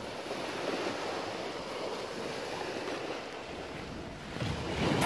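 Steady wash of sea surf on a pebble shore, an even hiss with no distinct strokes.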